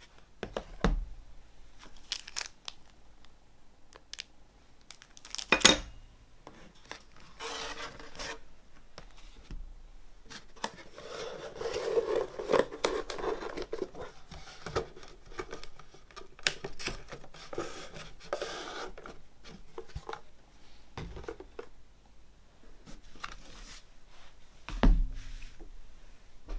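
A cardboard box and its printed card contents being handled on a wooden table: rustling and sliding of cardboard, with a few sharp knocks as things are set down. The loudest knock comes about five seconds in, another near the end.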